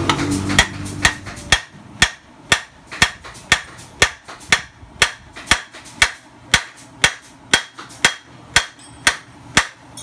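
Hammer striking a steel bar held against a scooter's rear wheel hub: steady blows about two a second, each with a short metallic ring. The blows are meant to free a rear wheel that is stuck fast.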